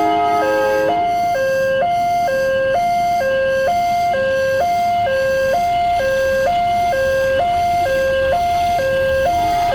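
Railway level crossing warning siren sounding continuously, an electronic two-tone alternating evenly between a higher and a lower pitch about every half second. A fainter, lower tone sounds briefly within the first second.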